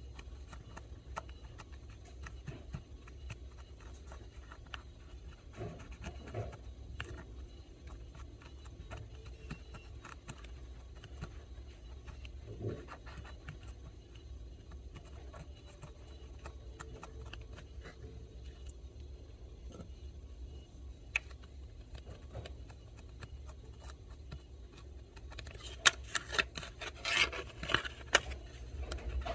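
Light scratching and rubbing with scattered small ticks as a cotton swab is worked over an iPod Nano's logic board, over a low steady hum. Near the end a run of louder scratchy rubs and knocks.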